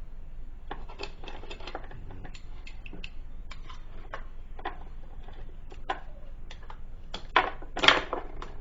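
Hand tools and small parts clicking and clattering on a wooden workbench as they are picked through: an irregular string of sharp clicks, with a louder cluster near the end.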